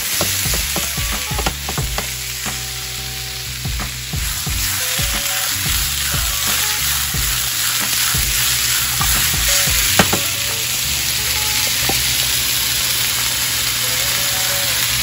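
Sliced zucchini, yellow squash and red bell pepper sizzling in a hot, oiled frying pan, with a spatula stirring and clicking against the pan, most busily in the first few seconds. A single sharp knock about ten seconds in.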